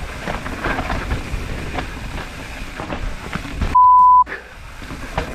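Mountain bike clattering over rocks and roots on a steep, rough descent: tyre noise with a run of knocks and rattles. About four seconds in, a loud half-second censor bleep cuts in over everything.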